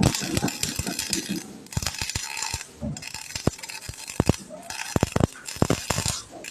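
Welding: spells of bright crackling hiss broken by many sharp metallic clicks and clinks.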